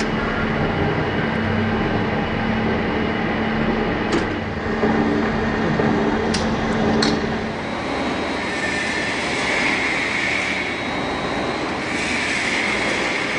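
Lathe running. A steady hum with a few sharp clicks gives way, about eight seconds in, to a rougher, hissing noise with a high whine that rises and fades twice.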